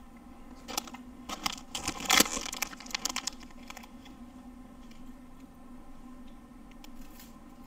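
Flaky pastry crunching and crackling as it is bitten and chewed: a cluster of crisp crackles from about one to three seconds in, loudest near the middle, then fainter chewing clicks.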